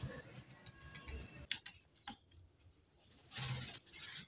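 A few light clicks and knocks, then pigeons stirring in a wooden nest box, with two short bursts of pigeon sound near the end.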